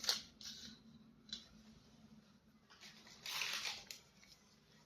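Faint handling noises from toys and their plastic packaging: a few brief rustles and light clicks, with a longer rustle of about half a second a little after three seconds in.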